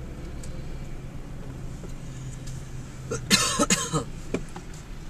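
A person coughs twice, sharply, about three seconds in, over the steady low hum of a car driving.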